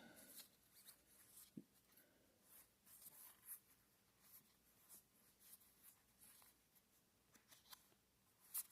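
Faint rustling and flicking of trading cards being slid past one another by hand, with a sharper tick near the end.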